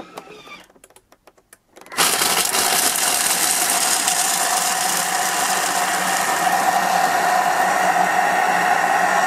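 Thermomix TM5 food processor running at top speed (speed 10), grinding white chocolate pieces into fine crumbs. A few soft clicks come first, then about two seconds in the motor starts and runs at a steady pitch.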